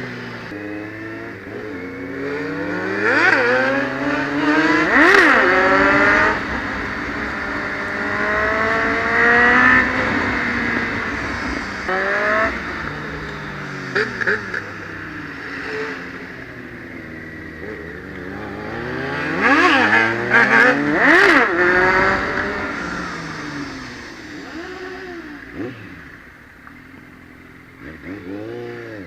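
Kawasaki Z750 inline-four motorcycle engine with an aftermarket sport exhaust, ridden on the road: its pitch climbs and drops back again and again as it is run up through the gears. Twice, about five seconds in and again past twenty seconds, other vehicles pass loudly. The engine quietens near the end as the bike slows.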